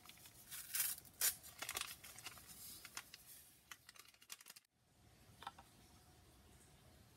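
Crinkling and rustling of a gelatin packet as it is shaken out over a plastic bowl, a quick irregular run of crackles that cuts off abruptly, followed by one short click.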